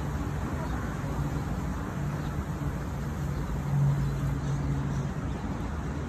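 Steady low hum of street traffic, with an engine drone growing louder about four seconds in.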